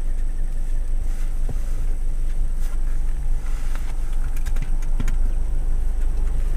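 Car driving at road speed, a steady low rumble of engine and tyre noise with a couple of faint clicks.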